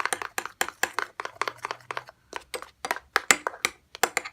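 A spoon repeatedly clinking and scraping against a plate while stirring slime glue with shaving foam: quick, irregular taps, several a second, with a short break about two seconds in.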